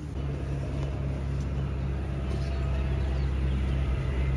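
Steady low motor rumble, like an engine running, growing slightly louder toward the end.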